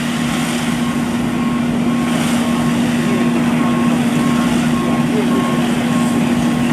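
Fire hose spraying water onto a burnt-out minivan with a steady hiss, over the steady hum of an engine running. A vehicle's reversing beeper sounds a short high beep about twice a second throughout.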